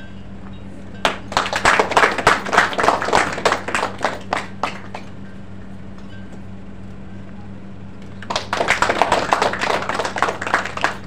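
A crowd applauding in two bursts of a few seconds each, separated by a short lull, over a steady low hum.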